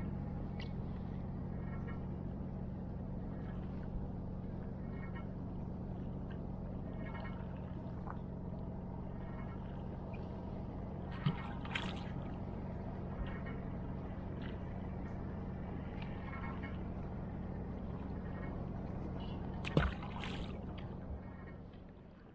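A boat engine running steadily, a low even hum, with a couple of brief knocks about halfway through and near the end; the hum fades away at the very end.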